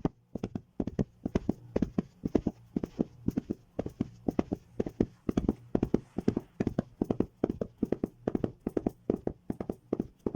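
Home-made Foley hoofbeats: hard objects knocked together in a quick, uneven clip-clop rhythm of about four or five knocks a second, imitating a trotting horse.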